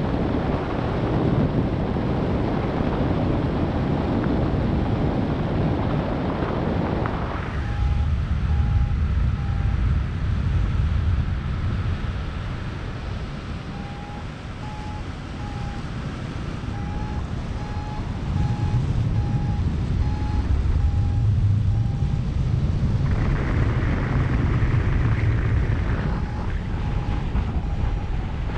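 Wind buffeting the microphone of a camera on a flying paraglider, a loud rush that gets heavier and lower at times. Over it, in several stretches, a variometer beeps in short, evenly spaced beeps at one pitch, its signal that the glider is climbing.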